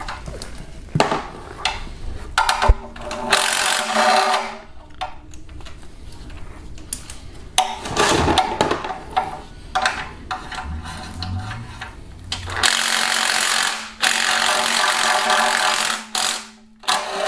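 Power ratchet spinning out oil pan bolts in several runs of one to two seconds each, the two longest near the end. Between the runs come clicks and small clatter of the tool and bolts.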